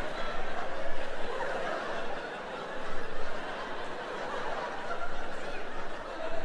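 Theatre audience laughing, in waves that swell about a second in, again around three seconds and near five seconds.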